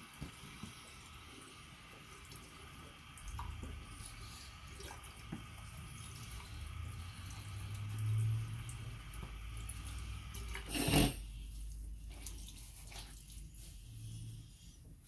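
Water running from a bathroom sink tap into the basin. About eleven seconds in comes one sharp knock, and the running water stops after it.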